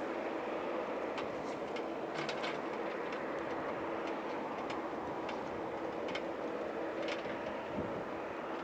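Distant, steady jet-engine rumble of an Airbus A330-200 on final approach, with a dozen or so scattered light clicks over it.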